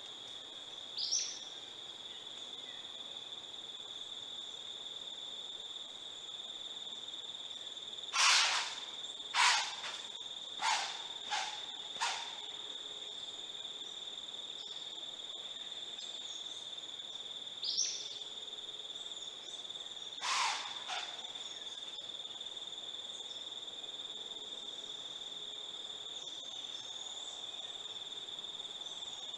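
Juvenile barred owl giving raspy, hissing begging screeches: a run of five about eight seconds in, each fainter than the last, and single ones near the start and around eighteen and twenty seconds. A steady high insect trill runs underneath.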